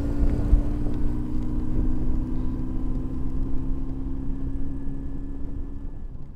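BMW R1150GS's air/oil-cooled boxer twin running at a steady cruising speed, with wind and wet-road noise, fading out over the last few seconds.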